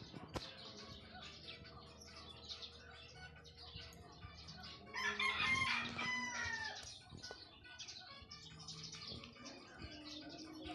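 A rooster crows once, about five seconds in. The call lasts nearly two seconds and falls in pitch at its end, over small birds chirping.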